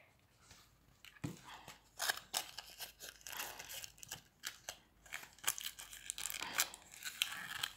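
Aluminium foil being crumpled and pressed into shape by hand: irregular crinkling and crackling.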